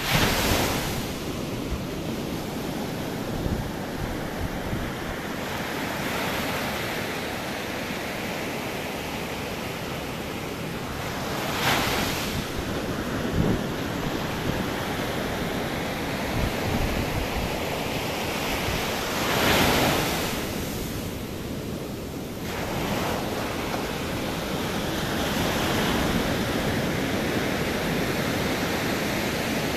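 Surf washing onto a sandy beach: a steady rush that swells louder a few times, with wind buffeting the microphone.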